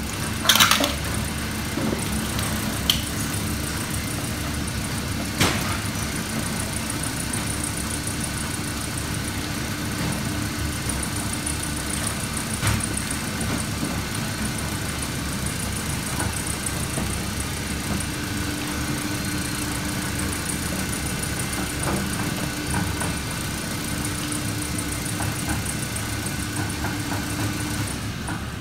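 Commercial meat mixer-grinder's electric motor running steadily with an even hum, grinding seasoned beef into sausage meat. A sharp knock comes just after the start and another about five seconds in.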